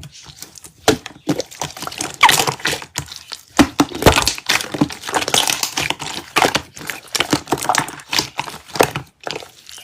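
Slime being squeezed and pressed by hand, a dense run of crackles, clicks and pops, cutting off abruptly at the end.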